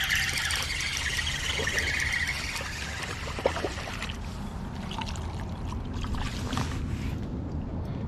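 A hooked crappie splashing at the water's surface as it is reeled in, loudest in the first couple of seconds, over a steady low rumble.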